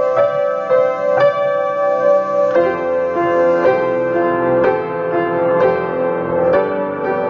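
Slow solo piano music, with a new note or chord struck about once a second.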